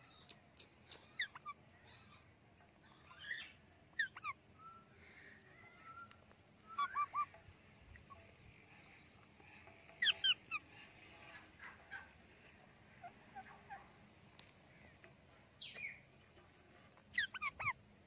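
Indian ringneck parakeets calling: short, sharp, falling squawks in quick clusters of two to four, repeated every few seconds.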